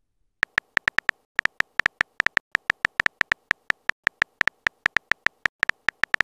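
Keypress click sounds from a texting app's on-screen keyboard, a rapid run of short, sharp clicks, about seven a second, as a message is typed letter by letter.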